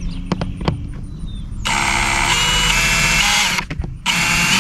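Drill driving an exterior deck screw through the joint of two drainage culverts. The motor runs hard for about two seconds, its pitch shifting as the screw drives in, stops briefly, then runs again near the end.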